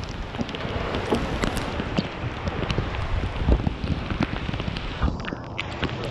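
Heavy torrential rain pouring down, a dense steady hiss with many sharp individual drop impacts close to the microphone.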